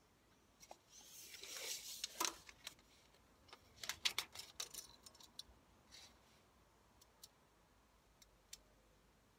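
Steel tape measure being drawn out and handled: a short scraping rush as the blade runs out, then a cluster of sharp clicks and taps from the blade and case around the middle, and a few faint single clicks near the end.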